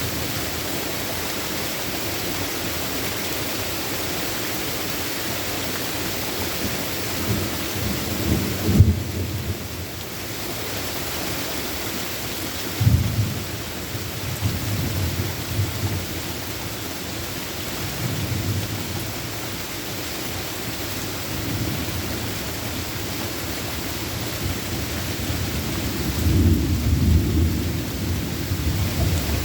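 Steady heavy rain with rolls of thunder: a sharp crack of thunder about nine seconds in, another about thirteen seconds in with rumbling after it, and a longer low rumble near the end.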